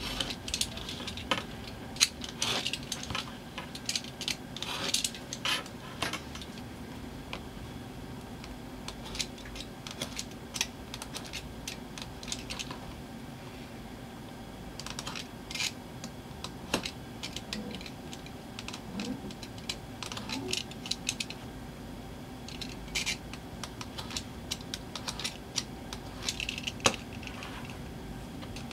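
Snap-off utility knife cutting and trimming a leather strap on a cutting mat: irregular clusters of short, sharp clicks and scrapes as the blade cuts through the leather and meets the mat and ruler.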